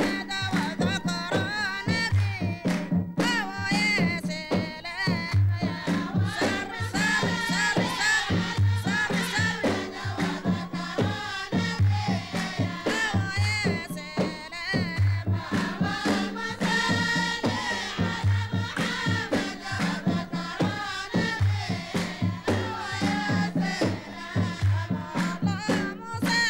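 Dhofari Sot Silam music: a group singing in chorus over a repeating rhythm of kasir frame drums and the deep rahmani drum, with handclaps.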